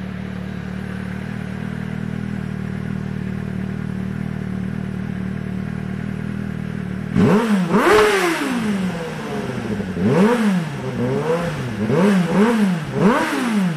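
Suzuki GSR 600's inline-four engine running through a custom-built exhaust: it idles steadily, then about halfway through is revved in several quick throttle blips, each rising in pitch and falling back to idle.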